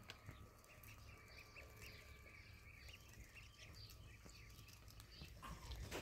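A flock of ducklings peeping faintly, many short high chirps in quick succession.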